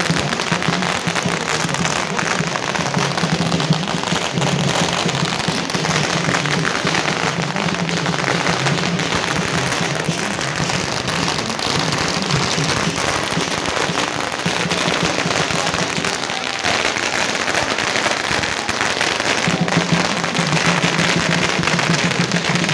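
A long string of firecrackers going off in a dense, continuous crackle of rapid pops.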